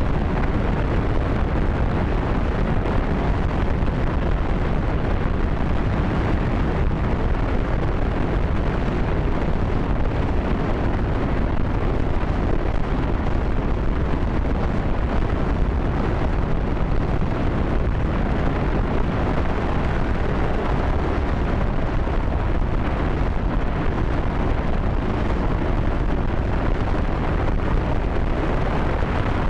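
J-2X liquid-hydrogen/liquid-oxygen rocket engine in a static test firing: a steady, unbroken rumbling noise, heaviest in the low end, with no change in level.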